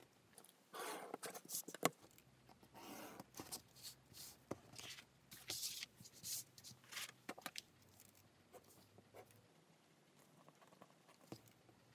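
Faint rustling and sliding of a kraft-paper pattern and a Webtex reinforcement sheet handled on a cutting mat, in short bursts with a few sharp taps. Near the end comes light scratching of a pen marking around the pattern on the Webtex.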